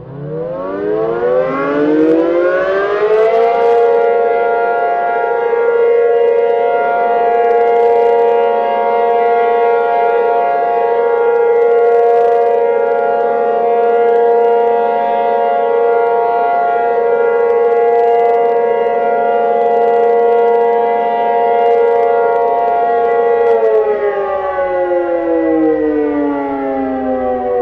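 Tornado warning siren winding up over about three seconds and holding one steady tone for about twenty seconds. It then starts winding down, its pitch falling, near the end.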